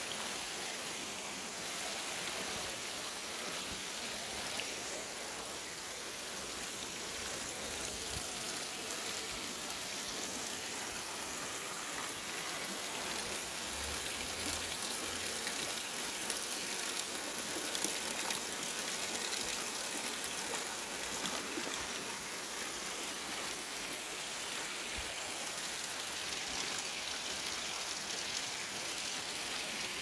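Steady splashing of water from stone fountain spouts pouring into a pond, an even hiss throughout.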